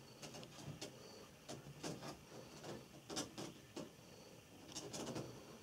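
Turkish Angora kitten licking its lips, a run of short, irregular wet clicks and smacks.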